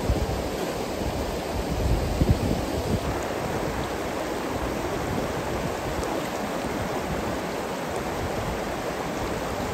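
Shallow mountain stream rushing and splashing over rocks and around a boulder, a steady rushing sound. A few low thumps about two seconds in.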